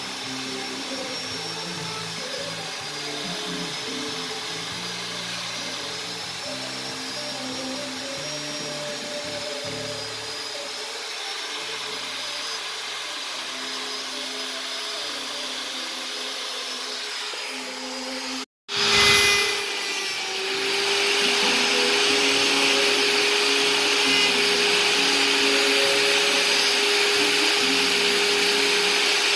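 Electric rotary carving tool with a small bit grinding detail into hardwood. For the first two-thirds its high whine sits under background music. After a brief break, the tool is heard louder on its own: a steady motor hum with the noise of the bit cutting wood.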